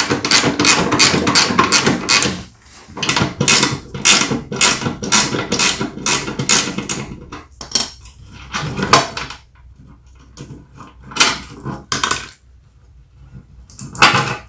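A wrench working the nuts off a snowblower's skid shoe, metal clicking in a quick steady run of about three a second. It then breaks into a few separate metallic clanks as the shoe comes free.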